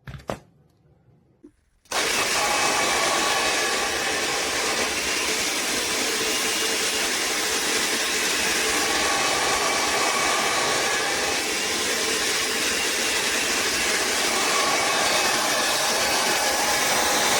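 A click, then about two seconds in a L'ANGE HAIR Soleil hair dryer switches on and runs steadily, its fan blowing with a faint motor whine under the rush of air.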